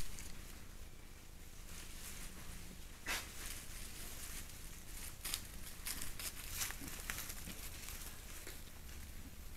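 Wild boar rooting and trampling in dry leaf litter: irregular rustles, crackles and sharp snaps, over a steady hiss. A short, louder burst comes right at the start.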